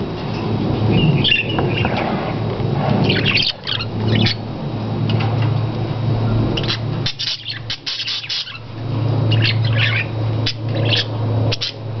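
Budgerigars chirping and chattering in short high-pitched bursts, on and off, over a steady low hum.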